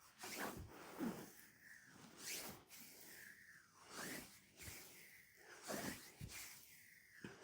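Hands rubbing and stroking the skin of a leg during a massage: repeated soft swishing strokes, about one a second.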